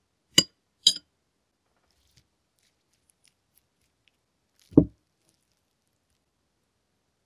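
Two sharp clicks about half a second apart, then a single dull thud about four seconds later: a hand-held manual nut grinder being handled.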